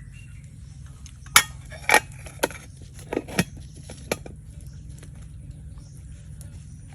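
Cooking utensils and cookware clinking and knocking together, about six sharp strikes in under three seconds, over a steady low hum.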